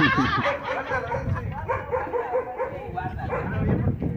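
A dog barking, a string of short barks one after another.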